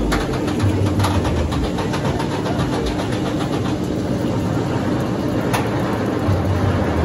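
Wicker Man roller coaster train being hauled up its lift hill, with a steady mechanical rumble and rapid clicking from the lift, and one sharper click near the end.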